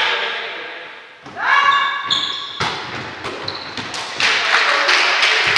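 Indoor volleyball rally: repeated sharp thuds of the ball being played, mixed with players' short shouts, echoing in a large sports hall.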